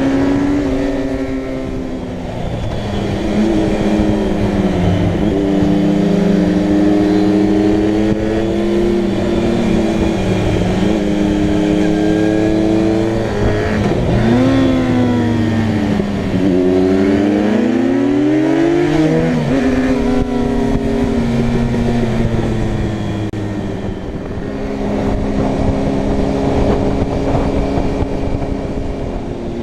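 Motorcycle engine running steadily at road speed. About halfway through the revs drop, climb, fall sharply at a gear change, climb again and fall back to a steady note.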